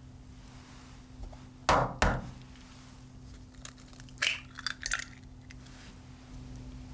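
A raw egg being cracked: two sharp knocks as the shell is struck, then a quick run of small crackles and clicks as the shell is pulled apart and the egg drops into a saucepan.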